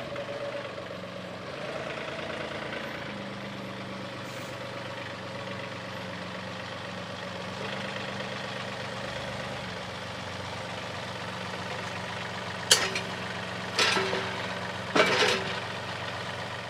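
John Deere 2038R compact tractor's three-cylinder diesel running steadily at low revs while the front loader and pallet forks handle a steel landscape rake. Near the end come three sharp clanks about a second apart as the rake is set down on the forks.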